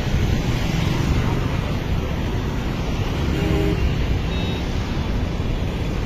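Steady outdoor rumble of road traffic mixed with the rush of the swollen river's flowing water.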